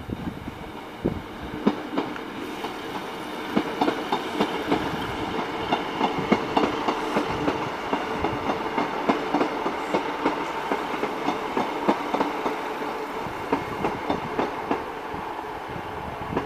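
Sprinter diesel multiple unit passing at low speed, its wheels clicking over rail joints and pointwork in an uneven run of sharp clicks, over a steady diesel engine hum.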